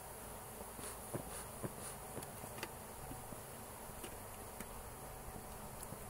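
Honey bees buzzing steadily around the hives, with a few short sharp ticks.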